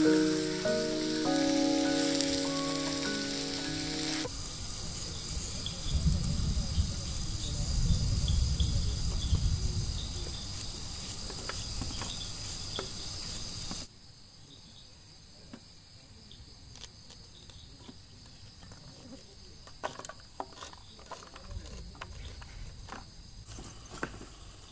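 Music stops about four seconds in, leaving forest ambience: insects keep up a steady high-pitched drone over a low rumble. About two-thirds of the way in, it cuts abruptly to a quieter ambience with scattered sharp clicks and taps.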